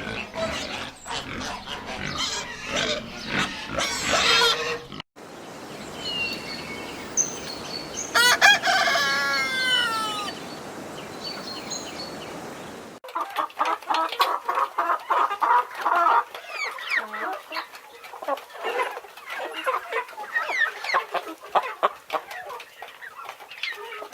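Chickens: hens clucking in quick short calls, and a rooster crowing once with a long call that falls in pitch at its end. The sound changes abruptly twice, as separate recordings are cut together.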